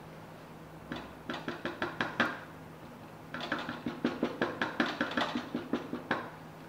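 A towel-wrapped hand tapping on the bottom of an upturned aluminium cake tin resting on a steel plate, in two runs of quick taps about six a second, to knock the baked cake loose from the tin.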